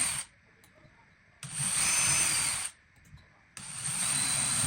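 Power drill running in short bursts with a high whine: one burst ends just after the start, another runs for about a second and a quarter, and a third starts near the end.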